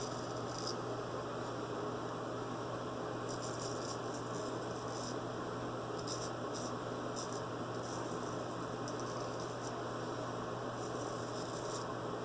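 Straight razor scraping through lathered stubble in a series of short, irregular strokes, over a steady electrical hum and hiss.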